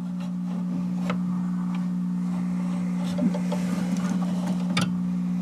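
Victor R-39 antique radio giving a steady low hum through its speaker, with scattered crackles and clicks of static.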